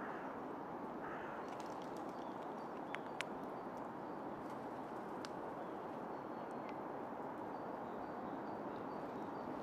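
Red squirrel eating pine nuts from a hand: two sharp cracks about three seconds in as it bites through the shells, and a few fainter clicks later, over a steady background hiss.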